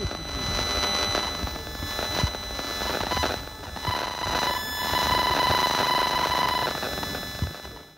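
Homemade e-smog detector, a germanium-diode RF detector feeding an LM386 amplifier and a small speaker, crackling and buzzing with the radio signals it picks up, several thin steady high tones over the noise. A stronger steady whistle-like tone comes in about four seconds in and stops near seven; the sound cuts off at the very end.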